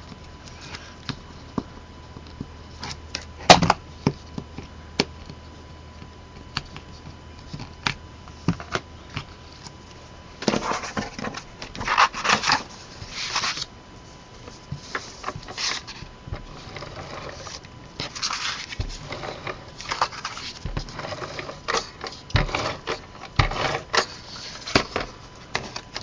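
Paper and chipboard being handled on a cutting mat: rustling, sliding and pressing of paper panels, with scattered light taps and one sharp knock a few seconds in.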